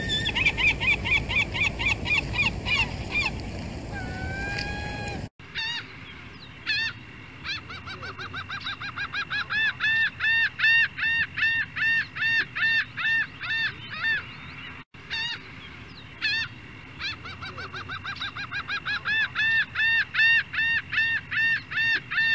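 Gulls calling in long, rapid series of repeated arched notes, three or four a second, building and falling away. There are several separate recordings with abrupt cuts about 5 and 15 seconds in, and a steady background rush under the first few seconds.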